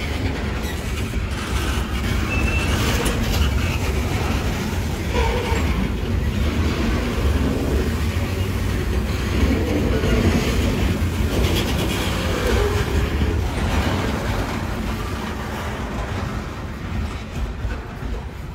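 Freight train's covered hopper cars rolling past on steel wheels, a steady rumble with faint wheel squeals now and then. The sound fades near the end as the cars move away.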